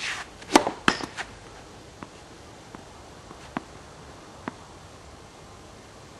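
Tennis ball impacts on racket strings and court: a quick cluster of sharp hits about half a second to a second and a quarter in, then a few fainter single knocks spread over the next few seconds.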